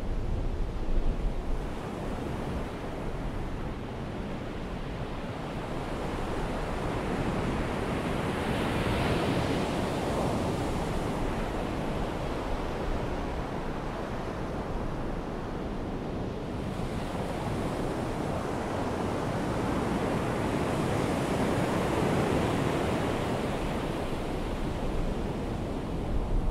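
Ocean surf washing on a beach, a steady rush that swells twice as waves break, with some wind rumble on the microphone.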